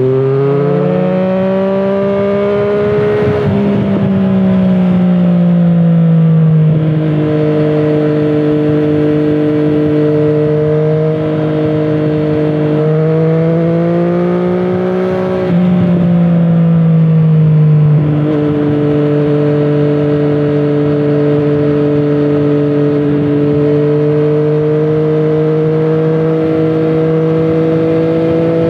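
Triumph Street Triple 765 RS's inline three-cylinder engine through a Scorpion Serket aftermarket exhaust, riding under load. The engine note climbs in the first few seconds, eases off around six seconds in, climbs again to a peak a little past halfway, then drops back and holds a steady, slowly rising note while cruising.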